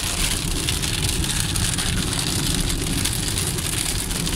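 Heavy rain hitting a moving car's windshield and body, mixed with tyre and road noise on the wet highway, heard from inside the cabin: a steady hiss over a low rumble.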